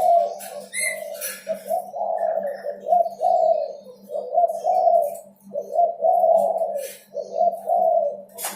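Derkuku dove cooing over and over, one deep coo phrase after another with almost no break, over a steady low hum. Scattered clicks sound throughout, with a sharp click near the end.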